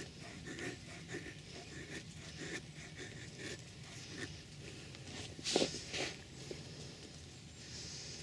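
Knife blade shaving thin curls down a wooden stick to make a feather stick: a series of short scraping strokes about two a second, with one louder stroke a little past halfway.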